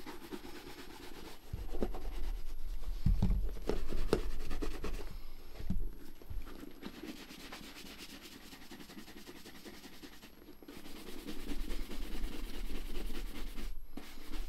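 A soft-bristled shoe brush swept briskly back and forth over the oiled leather of a Red Wing 9874 work boot, buffing it as the final finishing step after oiling. The rubbing is louder in two stretches, with a few light knocks of the brush against the boot in the first.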